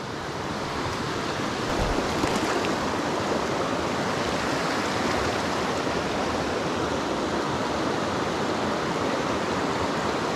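Small rocky mountain stream rushing over stones and a little cascade, a steady water noise that grows a little louder over the first couple of seconds and then holds even.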